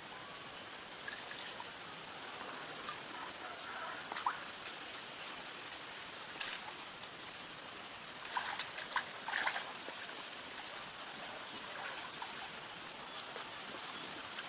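Water trickling and splashing over a steady hiss, with scattered short splashes, a cluster of them a little past halfway.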